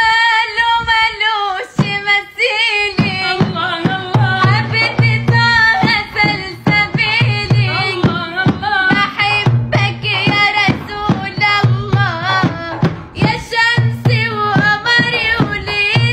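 A young woman singing an Arabic Islamic nasheed solo, in long wavering, ornamented phrases, over a low repeating drum beat.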